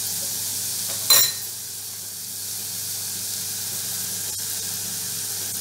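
Chopped vegetables sizzling steadily in hot oil in a steel pot, with one short, louder sound about a second in and a faint click near four seconds.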